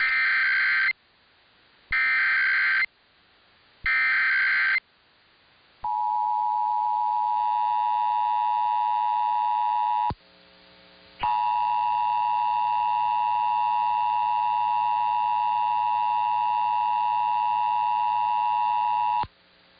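Emergency Alert System SAME header: three bursts of digital data, about a second each, encoding a required monthly test. Then the EAS two-tone attention signal sounds steadily, drops out for about a second some ten seconds in, and resumes until shortly before the end.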